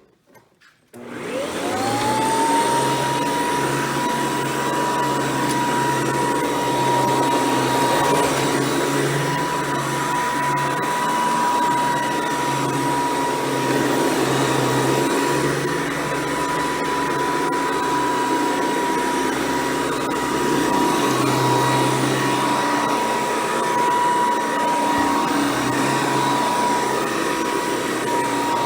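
Hoover Decade 800 upright vacuum cleaner switched on about a second in: the motor whine climbs quickly to a steady high pitch, then runs on with a loud rush of air.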